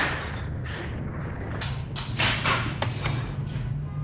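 Metal clattering and knocking as old power tools in a scrap heap are shifted and handled: a string of irregular knocks, busiest in the second half, over a steady low hum.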